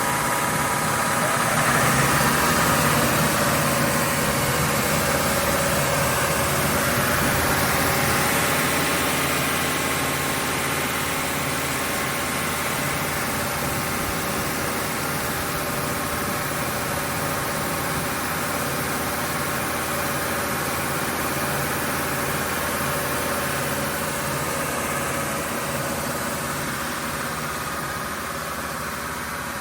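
Maweg SE II through-feed sander running steadily, its two sanding units and their 4 kW motors giving a continuous mechanical hum with several steady tones, growing gradually a little quieter.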